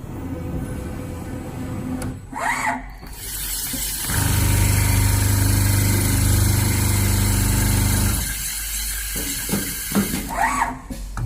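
CNC leather sewing machine running: a short rising motor whine, then a loud steady run of the stitching head for about four seconds, and another rising whine near the end.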